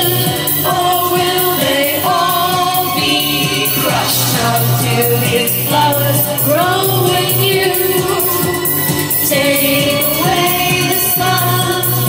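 A woman singing live into a microphone, holding long notes that slide from pitch to pitch, over instrumental accompaniment with a steady beat.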